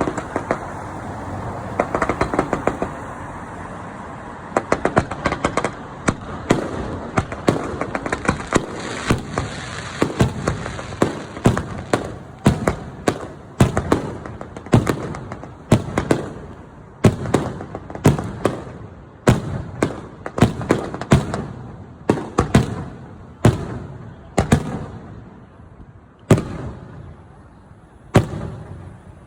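Fireworks display: aerial shells bursting in quick succession with many sharp bangs. The bursts run together in a dense crackling barrage through the first half, then come as separate bangs about one a second, each followed by a fading rumble.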